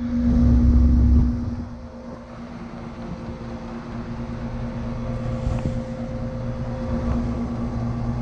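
1985 York Champion IV 'Tombstone' air conditioner running, its Copeland CR reciprocating compressor and condenser fan giving a steady hum. For about the first second a low rumble of wind on the microphone lies over it.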